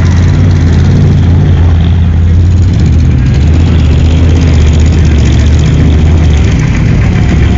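A pickup truck's engine running steadily and loudly nearby, a low, even drone with slight changes in pitch.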